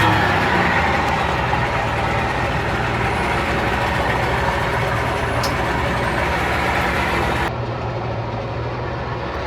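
Speedboat engine starting up and running steadily at idle, a loud, even drone that cuts in suddenly and turns a little quieter and duller near the end.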